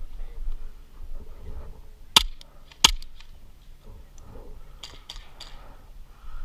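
Two sharp airsoft gun shots about two-thirds of a second apart, followed a couple of seconds later by a few fainter clicks, over low rustling of the player moving.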